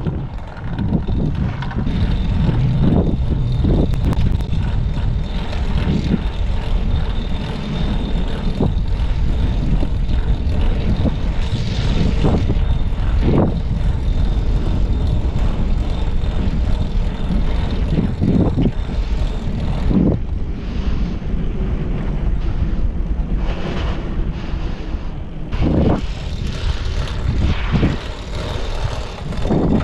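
Steady low engine rumble of heavy machinery, with scattered short knocks throughout.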